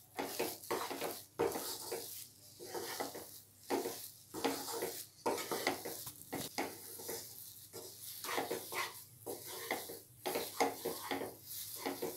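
Wooden spatula stirring and scraping thick upma around a non-stick kadhai in repeated, irregular strokes, about one or two a second. This is the semolina being stirred on low heat until the last of the water dries out.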